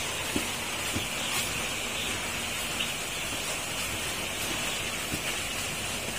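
Steady din inside a broiler house: the massed peeping of thousands of nine-day-old broiler chicks over a faint low hum, with a few faint taps.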